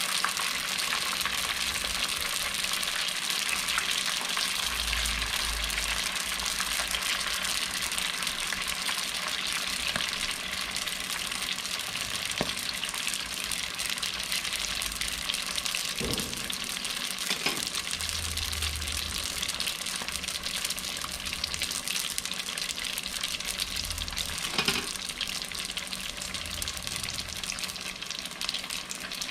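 Egg rolls deep-frying in hot oil: a steady, even sizzle, with a few light knocks in the second half.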